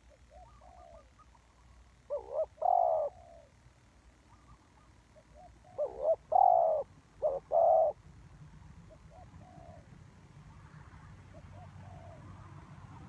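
Spotted dove cooing: two loud phrases of several coos, about two seconds and six seconds in, with fainter coos between them.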